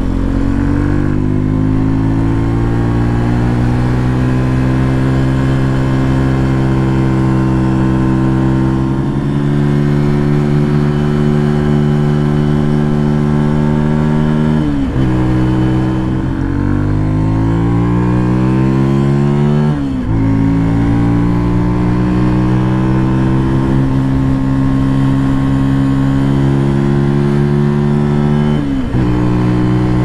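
2022 Benelli TNT 125's air-cooled 125 cc single-cylinder engine through its stock exhaust while being ridden, heard from the rider's seat. The engine pulls at fairly steady revs, which drop sharply at gear changes about halfway in, a few seconds later and near the end, and build again after each.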